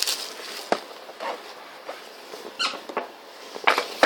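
Cardboard card box and wrapped packs being handled: short squeaks of cardboard and wrapper rubbing, with scattered light clicks and scrapes.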